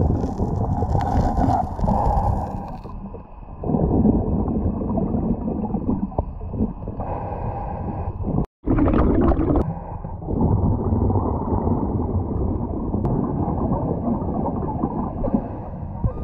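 Muffled underwater rumbling and gurgling of a diver's exhaled air bubbles and churning water as he digs in the sand, rising and falling unevenly. The sound cuts out completely for a moment about eight and a half seconds in.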